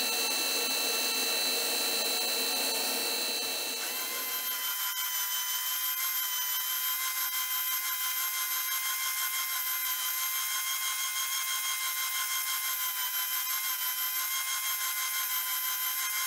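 Stationary edge belt sander running for the first four seconds, then an abrupt change to an oscillating spindle sander running steadily, a high whine with a fast, even pulse in its level, as a curved wooden piece is pressed against the sanding drum.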